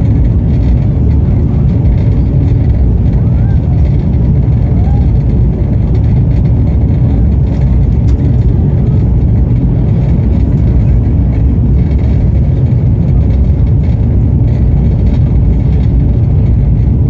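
Passenger train running, heard from on board: a loud, steady low rumble that does not let up.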